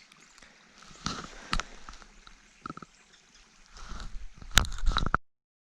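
Handling noise on the camera microphone: scattered clicks and knocks that grow denser and louder near the end, then the sound cuts off suddenly.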